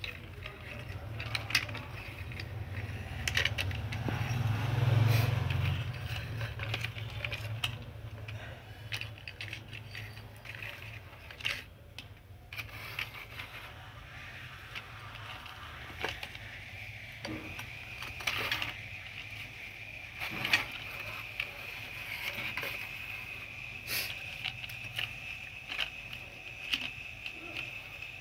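Small plastic toy vehicles being handled and pushed about on a concrete floor: scattered light plastic clicks, knocks and scrapes. A steady high whine sits underneath from about halfway through.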